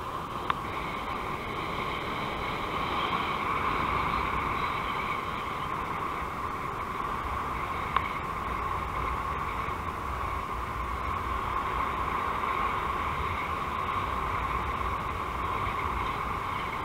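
Wind rushing over the camera during a paraglider flight: a steady rumbling rush with a wavering whistle, and two sharp clicks, one about half a second in and one about eight seconds in.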